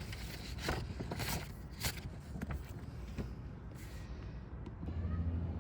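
Handling noises from the oil bottle and funnel: scattered short rustles and clicks. Near the end a low steady hum comes in.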